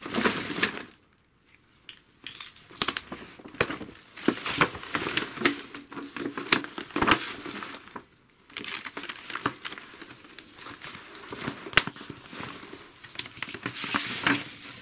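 Sheets of drawing paper and a sketchbook being handled: irregular rustling and crinkling with sharp clicks, pausing briefly about a second in and again about eight seconds in.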